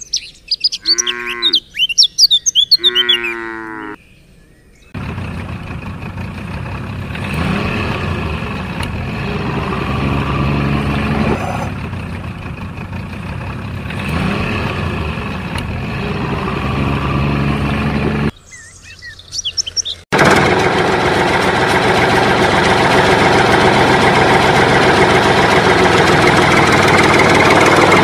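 Water buffalo mooing a few times, with birds chirping, over the first few seconds. Then a steady engine-like hum, which breaks off briefly about two-thirds through and comes back louder and more even to the end.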